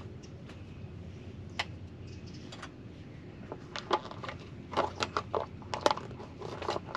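Irregular sharp clicks and crackles, a few at first and coming thick and fast from about halfway through.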